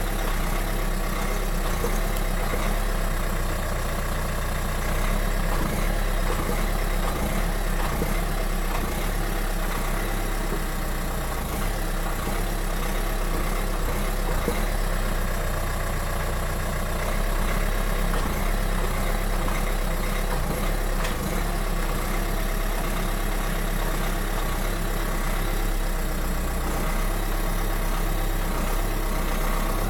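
2018 Dacia Duster 4x4 (115 hp) running steadily, a constant engine and drivetrain noise with slight swells in level. The owner is documenting it as a transmission noise.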